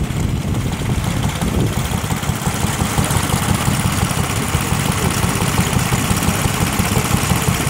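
Lister D type single-cylinder stationary engine running steadily under load, belt-driving a small water pump, with a fast, even beat of firing strokes.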